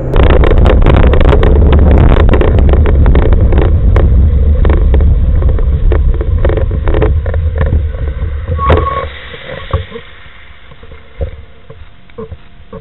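Loud low rumble with many rattling clicks from a bicycle-mounted camera. It drops away about nine seconds in, leaving a faint background with scattered clicks and a few short squeaks.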